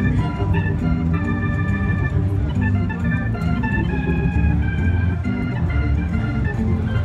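Hammond SK2 organ played by four players at once in a funky improvised jam: a busy pattern of short notes over a low bass.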